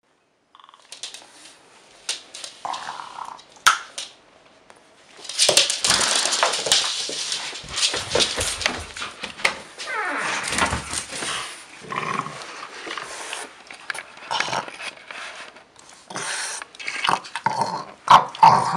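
French bulldog making dog noises while it plays with and mouths a small rubber ball, in uneven bursts with a few sharp clicks.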